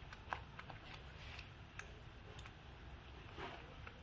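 Faint, irregular small clicks and taps with a few soft rustles, over a low steady hum.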